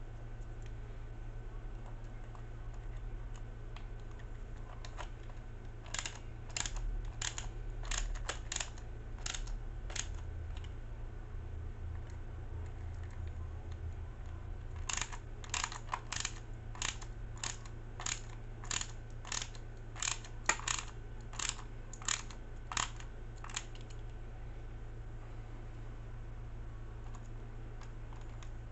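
Hand screwdriver driving self-tapping screws into a plastic RC gearbox housing: two runs of sharp clicks, about two a second, with a pause between. A low steady hum underneath.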